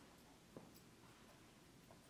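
Near silence: room tone, with one faint click about half a second in.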